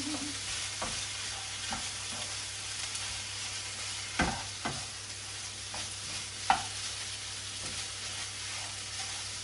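Chopped chicken, shallots and garlic sizzling as they fry in a non-stick pan, stirred with a wooden spatula that knocks against the pan now and then, loudest about two-thirds of the way through. The chicken has just gone in and is starting to brown.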